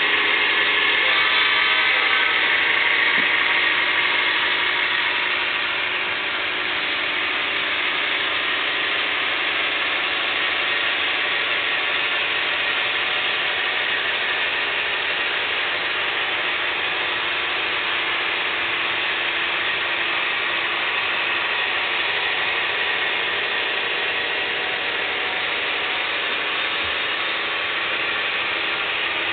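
HO scale model freight cars rolling steadily across the track and bridge, a continuous clatter of small wheels on the rails, a little louder for the first few seconds.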